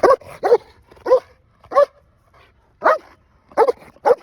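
A dog barking repeatedly: about seven short, loud barks at uneven intervals of half a second to a second.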